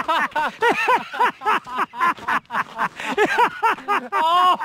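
Men laughing hard: a long, unbroken run of quick ha-ha pulses, several a second, rising into a higher, drawn-out laugh near the end.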